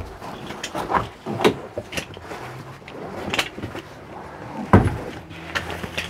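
Handling noise from an RV's over-cab bunk: a foam mattress cushion being flipped down and shifted, and the bunk's mesh safety net with its straps being pulled out, giving rustling and several soft knocks, with a heavier thump near the end.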